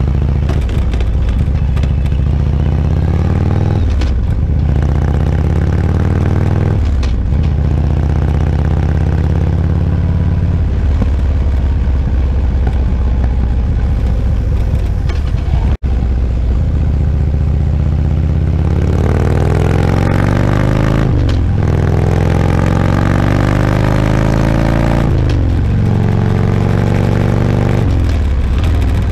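Motorcycle engine pulling through the gears, its pitch climbing steadily and then dropping at each upshift, four times, over wind noise. The sound cuts out for an instant about halfway through.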